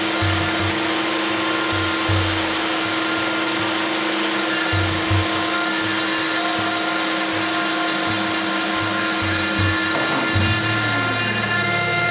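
CNC router spindle running with a steady whine as a 6 mm ball-nose cutter carves MDF, mixed with the rushing of a shop vacuum hose sucking up the dust, over uneven low rumbling. About a second before the end, the spindle's tone drops.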